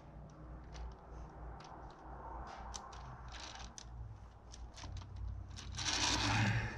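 Light clicks and taps as a clay sculpture on a wooden stand is handled and turned, with a louder rubbing noise starting nearly six seconds in as the stand rotates.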